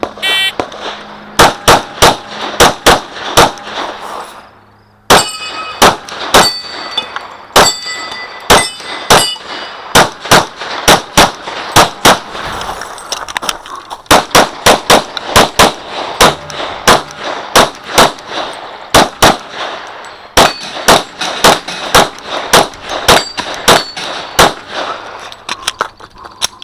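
Shot-timer beep, then rapid strings of .40 S&W pistol shots from a Glock 35, with steel targets ringing on some hits. The shooting breaks off for about a second shortly before the five-second mark, then carries on in fast pairs and strings.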